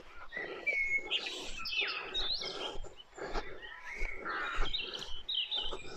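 Songbirds singing and chirping, many short notes with quick rising and falling pitch slides.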